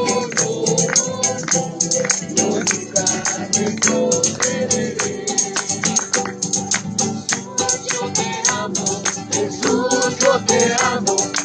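Group worship music: a tambourine shaken and struck in a quick, steady beat of about four or five strikes a second over an instrumental accompaniment, with some voices singing along.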